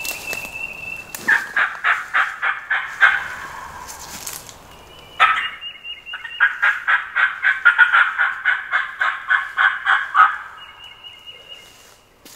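Turkey calling: two long runs of rapid raspy notes, about five a second, the second run about twice as long as the first. A thin steady high tone sounds before, between and after them.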